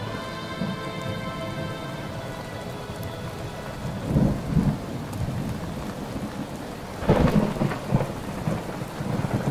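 Steady rain with two rolls of thunder, about four and seven seconds in, while the last held notes of an ambient music track fade out in the first two seconds.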